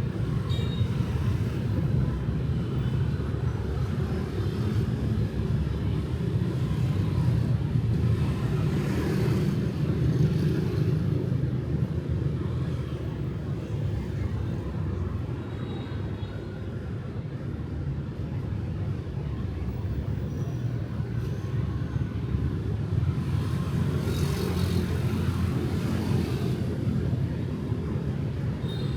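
Street traffic of motorbikes and cars, a steady low rumble. A vehicle passes close about a third of the way in and another near the end.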